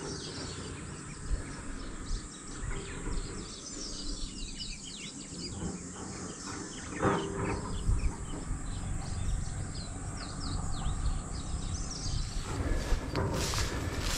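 Small birds chirping in open grassland over a steady low rumble, with a few brief knocks around the middle and again near the end.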